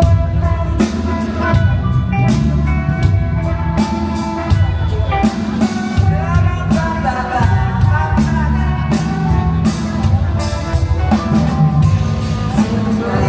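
Rock band playing live, with drum kit, bass and guitar, and a voice singing over it.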